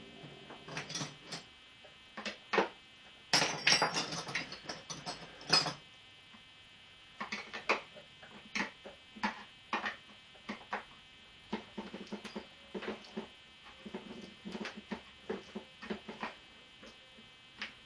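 Irregular metal clicks, clinks and knocks of hand tools working the bolts on a motorcycle's front end, with a dense rattling flurry a few seconds in. A steady faint electrical hum runs underneath.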